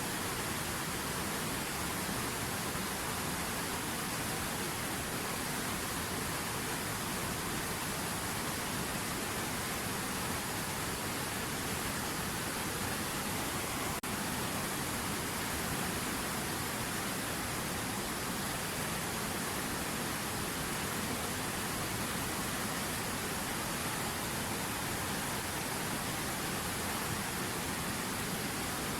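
River water rushing steadily, a dense even hiss with no change throughout.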